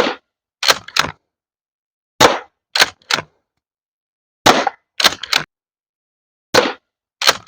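Umarex HDX 68 gas-powered pump-action shotgun firing four sharp shots a little over two seconds apart. Each shot is followed by two quick clacks as the pump is worked back and forward to load the next steel-weighted rubber ball.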